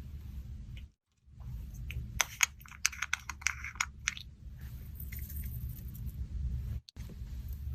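Slime being squeezed and poked by hand, giving a quick run of crackling pops and clicks, then a softer squishing rustle, over a steady low background hum.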